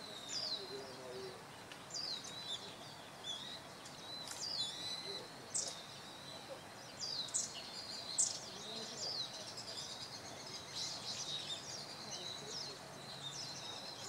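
Birds calling: a scatter of short, high, sweeping chirps, coming more thickly in the second half, over a faint outdoor background.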